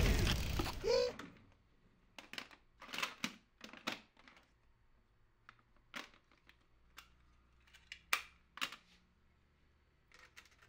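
Music fades out in the first second. Then come scattered plastic clicks and clatters as hands sort through a box of old video gear, cables and tapes: a dozen or so short knocks, spread out with quiet gaps between them.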